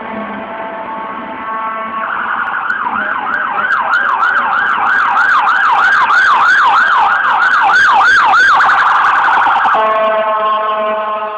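Emergency vehicle siren passing in the street: a steady held tone switches about two seconds in to a fast yelp, sweeping up and down about three times a second, then drops back to a steady tone near the end. It is loud, growing to a peak late in the yelp and easing off afterwards.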